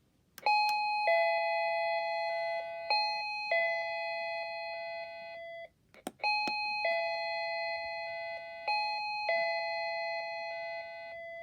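Wireless plug-in doorbell chime playing its electronic melody of bell-like notes, twice. A sharp click comes just before each play, and the second play is cut off at the end.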